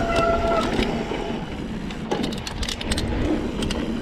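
Mountain bike rolling fast over a dirt trail: tyre and wind rumble with scattered clicks and rattles from the bike over rough ground, and a short steady squeal near the start.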